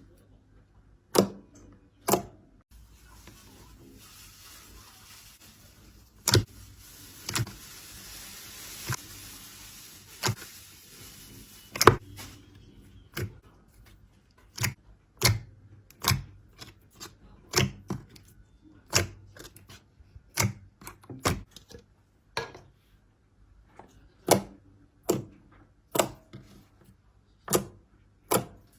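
Slime being handled, giving sharp, separate pops and clicks, about one a second, with a faint hiss under them for the first ten seconds or so.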